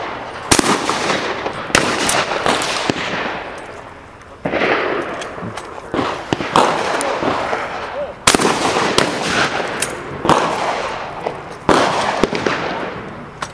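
Shotgun shots firing about every second or two, each sharp report trailing off in a long echo, some louder and nearer than others.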